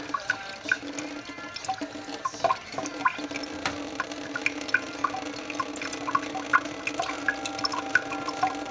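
Thin stream of water running from a kitchen tap into the sink, pattering with many small irregular drips and splashes. A steady low hum runs underneath.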